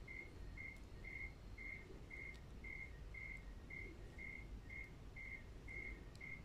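A cricket chirping steadily, about two short, same-pitched chirps a second, over a faint low rumble.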